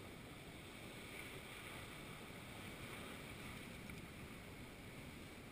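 Ocean surf washing over rocks with wind, a low steady rushing that swells a little in the middle.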